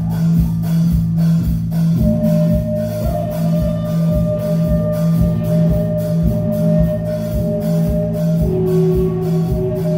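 Rock band playing live: a steady drum beat under bass and electric guitar, with a strong low drone and long held notes over it.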